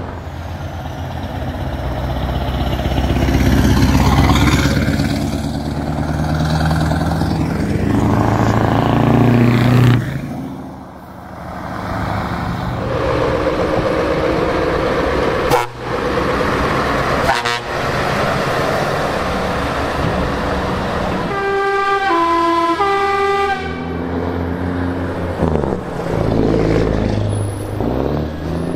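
Heavy trucks driving past one after another, their diesel engines running loud and close for the first ten seconds. A truck horn sounds about halfway, followed by two sharp cracks. About three quarters through, a musical air horn plays a short tune of several notes.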